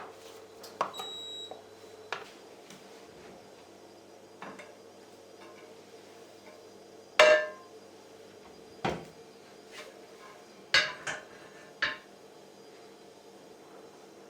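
Kitchen dishes and utensils being handled and set down: a series of separate knocks and clinks, the loudest about seven seconds in and three in quick succession near the end.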